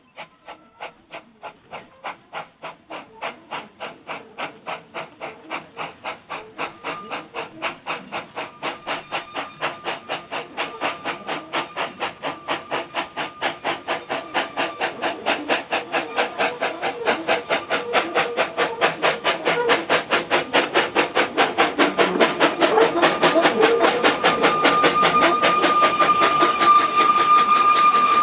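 Small narrow-gauge steam locomotive working a passenger train, its exhaust beats coming about three to four a second and growing steadily louder as it approaches and passes, with the carriages' wheels clattering on the rails. A steady high-pitched ringing tone joins near the end.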